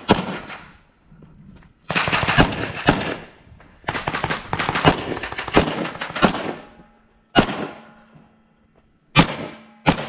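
Rapid pistol fire from a compensated CZ Czechmate competition pistol in 9mm: a quick string of shots about two seconds in, a longer string about four seconds in, then single shots near the end.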